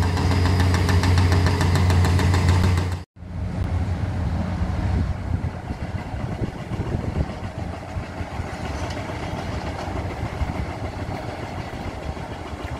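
Diesel demolition plant, excavators and a mobile concrete crusher, running with a steady low drone and a fast rattle. About three seconds in, the sound breaks off abruptly and is followed by an excavator working rubble at a greater distance: a rougher engine sound with scattered knocks.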